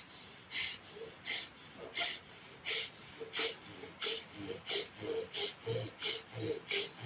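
Bhastrika pranayama: forceful, rapid breaths pushed in and out through the nose, each stroke a short rushing breath sound, in an even rhythm of about one and a half strokes a second.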